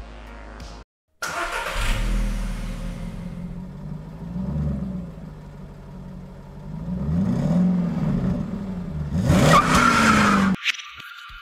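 A car engine revving and accelerating, its pitch climbing and falling several times as if pulling through the gears. It is loudest just before it cuts off suddenly near the end.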